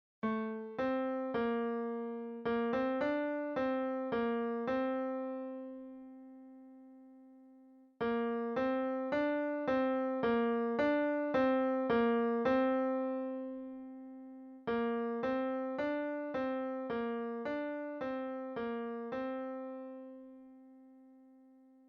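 Piano playing a single-line melody in the tenor range, the tenor part of a choral piece, one note at a time. It comes in three phrases, each ending on a held note that fades away.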